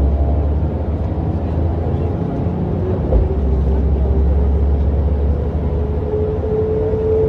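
Mercedes-Benz O405NÜ bus running, a steady low drone with a whine that rises in pitch near the end. A thump about three seconds in.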